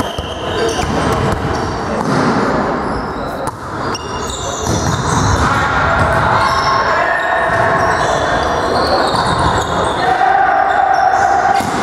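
Several voices calling and shouting, echoing in a large sports hall, with the occasional thud of a volleyball being hit during a rally.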